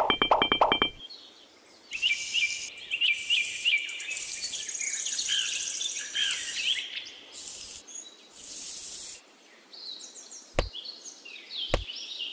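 Birds chirping, with stretches of high rasping hiss in the middle and a few sharp clicks near the end.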